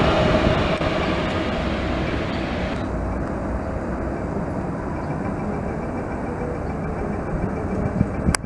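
Alstom Citadis 302 low-floor tram passing close, a steady running noise of wheels on rails. About three seconds in the sound cuts abruptly to a duller, quieter rumble of a tram approaching, with a single sharp click near the end.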